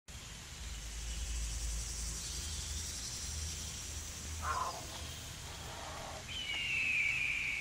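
Outdoor ambience with a steady low rumble and a high even hiss throughout. A brief falling call comes about four and a half seconds in, and a high wavering call begins near the end.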